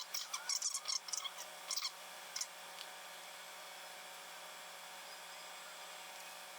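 Light clicks and rubbing from hands at work on the cylinder head and camshaft while oiling the parts, for about the first two and a half seconds, then only a steady faint hiss.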